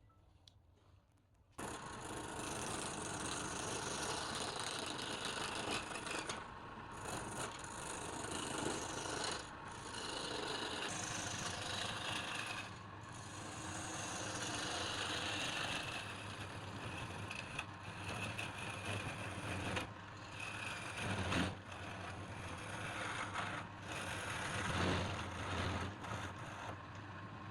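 Wood lathe turning a workpiece while a cutting tool scrapes against the spinning wood, starting suddenly about a second and a half in and going on with brief pauses, over a steady low motor hum.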